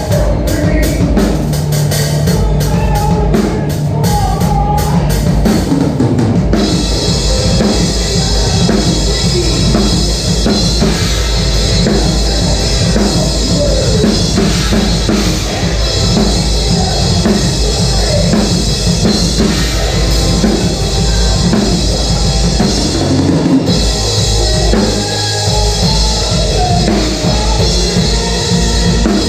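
Loud band music driven by a full drum kit, with bass drum and snare; cymbals come in about six seconds in and drop out briefly near the end.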